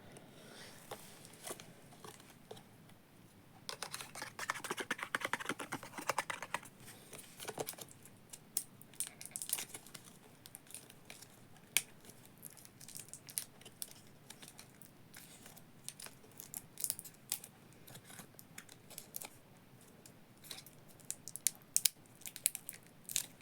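Hands handling small plastic parts and packaging: scattered sharp clicks and taps, with a stretch of rustling and crinkling about four seconds in and a quick run of louder clicks near the end.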